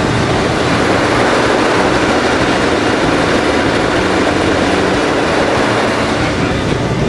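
A tugboat's large inline diesel engine running: a loud, steady mechanical din.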